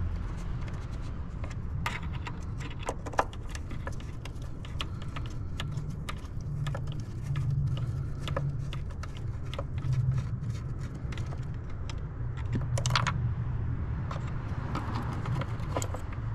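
Hand Torx screwdriver backing out the small screws of a boost pressure sensor, making irregular light metal clicks and ticks with a few sharper ones. A steady low rumble runs underneath.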